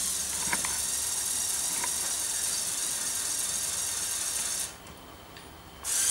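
Lepin L motor whirring as it drives a Lego Technic crane winch through its gears, hoisting a bucket of bricks. It runs steadily for about four and a half seconds, stops, and starts again just before the end.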